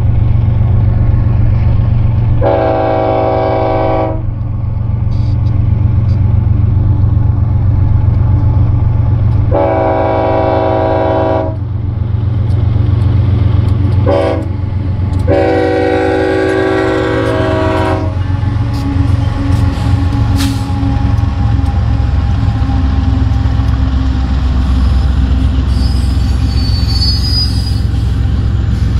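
BNSF diesel locomotive's multi-note air horn sounding long, long, short, long, the standard grade-crossing signal, over the steady rumble of the approaching engines. After the last blast the locomotives pass and double-stack container cars roll by with steady wheel-on-rail noise and a faint squeal near the end.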